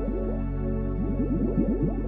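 Background music: steady held tones under a run of quick sliding notes, which thin out for about the first second and then resume.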